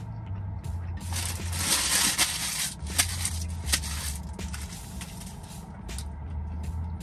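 Crunching and crackling as a fried rolled tortilla, a chicken cheddar roller, is bitten and chewed. A dense crunch comes about one to three seconds in, followed by a few sharp cracks.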